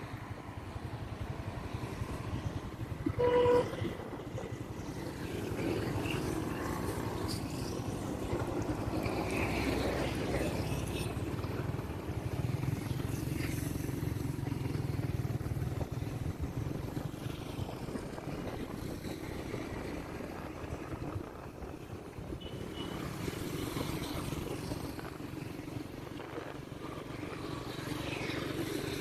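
Motorbike engine and road noise, steady, while riding through town traffic. About three seconds in, a short horn beep is the loudest sound.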